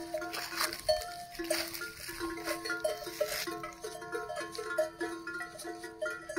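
Bells on grazing cattle clanking at a few different pitches as the animals move and feed, each clank ringing briefly. Rustling in the brush in the first few seconds.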